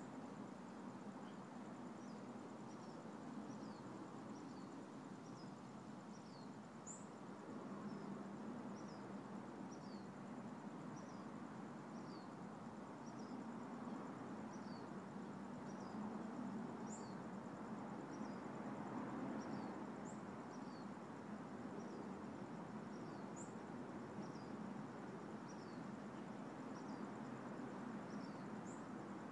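Faint outdoor ambience: short, high, falling bird chirps repeat about once a second, with an occasional higher single note every few seconds, over a steady haze of distant background noise.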